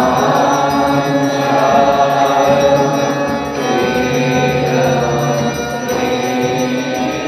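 Devotional chanting in held notes over a low, steady drone.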